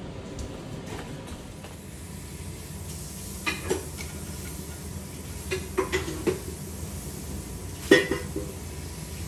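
Steady low background noise with three short clusters of clinks and knocks a couple of seconds apart, the loudest near the end.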